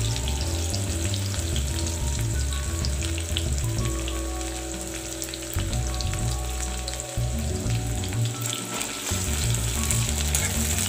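Chopped onions sizzling and crackling in hot mustard oil in a metal kadai, with a spoon stirring them near the end.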